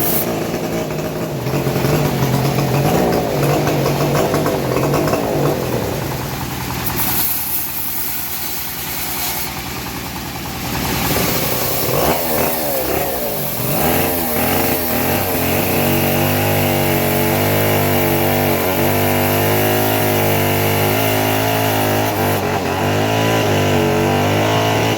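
Engine driving a homemade bandsaw mill, running with its speed dipping and rising around the middle, then running steadily.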